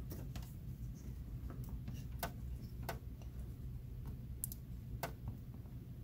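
A handful of light, irregularly spaced clicks as a wooden follower is pressed against a brass padlock cylinder core, working the core out of the lock body, over a low steady hum.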